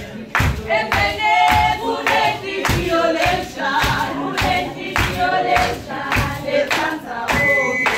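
A group of women singing a traditional Swazi song in chorus, with hand clapping on a steady beat about twice a second.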